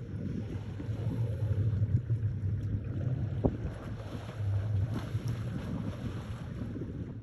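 Wind buffeting the microphone as a steady low rumble, with a single sharp knock about three and a half seconds in.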